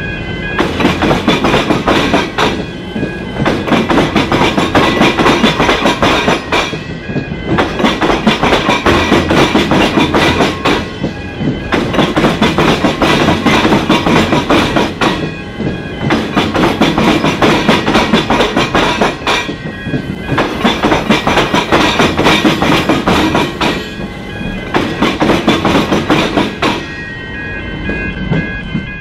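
Suburban electric train rolling through a tram square where tram tracks cross the railway, its wheels clattering loudly over the crossing rails. The clatter eases briefly about every four seconds, carriage by carriage. Level-crossing bells ring steadily, heard plainly near the start and again near the end.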